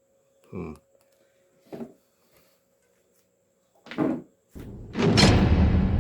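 Components being handled on a work surface: three short knocks, then a louder rustling, clattering noise from about four and a half seconds in. A faint steady hum sits under the first part.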